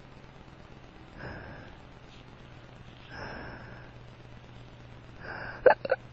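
Drunk man hiccuping: two soft, breathy sniff-like catches about two seconds apart, then a louder, sharp double hiccup near the end.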